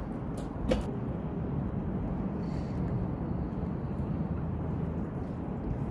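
Two sharp knocks of boots on the wooden dock less than a second in, over a steady low rumble.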